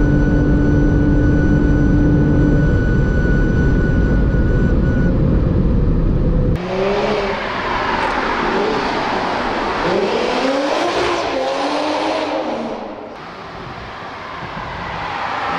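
Manhart-tuned Toyota Supra MK5's turbocharged 3.0-litre inline-six running steadily at about 280 km/h, heard inside the cabin under heavy wind and road noise. After a sudden cut the car is heard from the roadside, its engine revs rising and falling again and again as it approaches.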